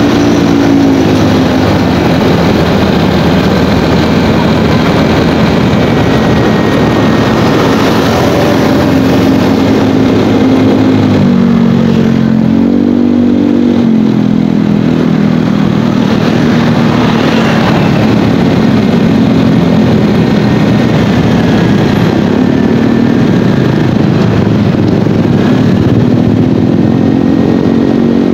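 Motorcycle engine running under way, its pitch dipping and climbing again about halfway through as the throttle changes, over a steady rush of road and wind noise.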